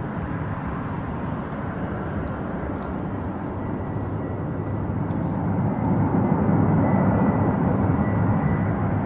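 Airbus A320-200 jet airliner on approach to land: a steady engine rumble with a thin high whine, growing louder about six seconds in as the plane draws closer.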